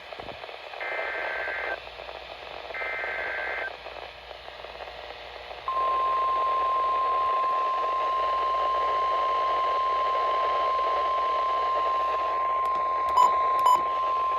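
NOAA Weather Radio emergency alert over a hissy radio signal: two roughly one-second bursts of buzzy, warbling SAME header data tones, then a steady single-pitch warning alarm tone held for about nine seconds, with two short louder beeps near its end. These tones open an Emergency Alert System flash flood warning.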